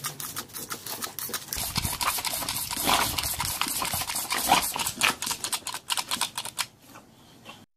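Rapid, irregular clicking and snapping, several a second, as a boxer dog snaps its jaws at a stream of water from a toy water gun. The clicking stops about a second before the end.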